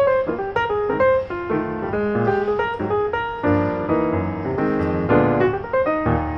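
Instrumental music led by piano, playing a quick succession of notes over low bass notes.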